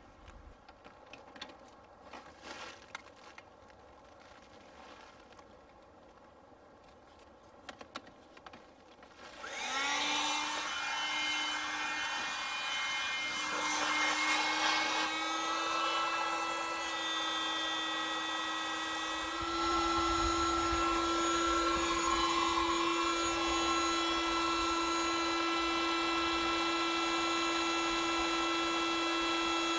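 Fabric rustling, then about nine seconds in a small electric air pump starts with a short rising whine and runs steadily, its pitch stepping up slightly twice as it inflates the camping gear.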